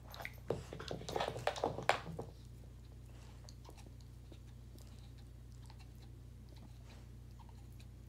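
Belgian Malinois gnawing a red rubber ring chew toy: a quick run of crunchy chewing clicks for the first couple of seconds, then only faint occasional ticks over a steady low hum.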